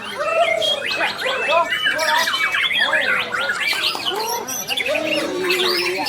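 White-rumped shamas (murai batu) singing at a songbird contest: a dense, fast stream of varied whistles, slurred notes and harsh chatter, with several birds' songs overlapping.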